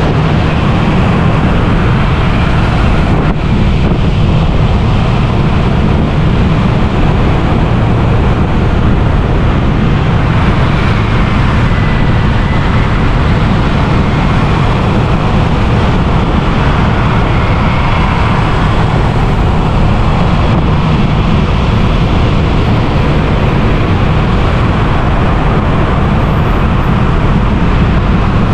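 Steady road traffic noise heard while moving through city streets, with a loud low rumble of wind on the microphone.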